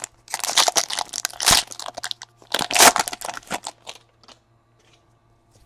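Foil wrapper of a pack of trading cards being torn open and crinkled by hand, a dense crackling that runs for about four seconds and then stops.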